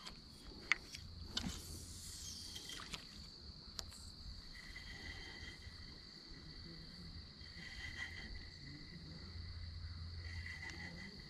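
Insects trilling steadily in a high, even tone, with a second, lower trill joining about four seconds in. A few sharp clicks in the first four seconds.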